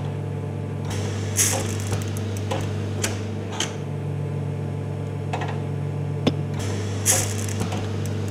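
TC-1 computer-controlled jacquard hand loom being worked: a steady electric hum with irregular sharp clicks and knocks. Two of the knocks, about a second in and near the end, carry a short hiss.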